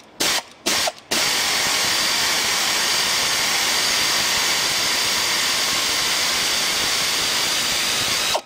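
Air ratchet spinning the forcing screw of a harmonic balancer puller. Two short blips, then a steady continuous run from about a second in.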